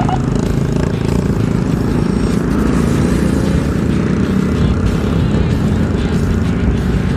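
Small motorcycle engine running steadily while riding along, with road noise and other traffic.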